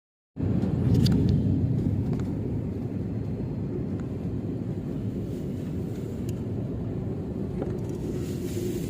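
Airliner landing: a steady low rumble that starts just after the opening, a little louder in the first couple of seconds, then even, with a few faint clicks.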